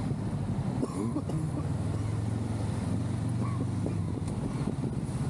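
Honda Rebel 500's parallel-twin engine running at a steady cruising speed, with a steady low hum and wind noise on the microphone.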